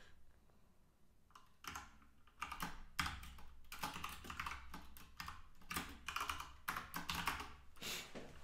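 Typing on a computer keyboard: quick runs of key clicks in irregular bursts, starting about a second and a half in.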